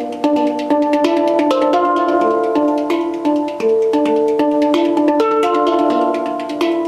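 Background music: held chords that change note by note over a steady ticking beat.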